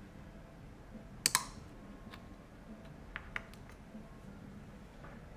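Sharp little metal clicks of needle-nose pliers working a wheel axle free from a toy car's diecast metal baseplate: a quick double click about a second in, then two lighter clicks about three seconds in.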